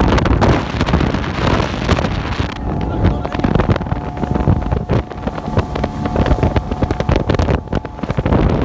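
Bayliner Capri runabout with a 3.0 MerCruiser four-cylinder sterndrive running at speed: wind buffeting the phone's microphone over the engine's drone, with repeated thumps of the hull over the chop. A steady high whine joins about a third of the way in.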